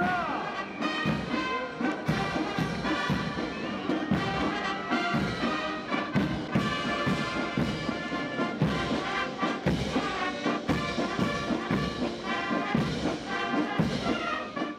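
Military brass band playing a march, with a steady drum beat about twice a second; it fades out at the very end.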